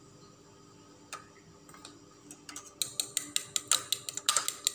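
Metal fork beating raw eggs in a plastic bowl: a faint click at first, then from about three seconds in a fast run of sharp clicks, about five a second, as the fork knocks against the bowl.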